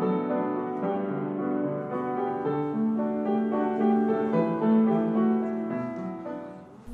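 Background music: a soft piano piece of held notes, fading out near the end.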